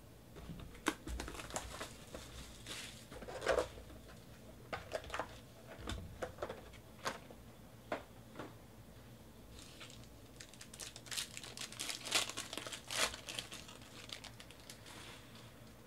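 Foil trading-card pack wrappers crinkling and tearing as they are opened by hand: scattered crackles and clicks that bunch up densely over the last few seconds.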